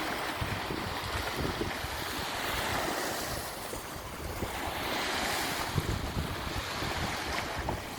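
Sea waves breaking and washing up a beach: a steady surf rush that swells twice and eases in between. Wind buffets the microphone with a low, gusty rumble.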